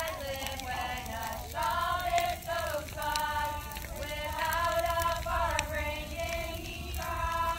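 A large group of girls singing a song together, with long held notes.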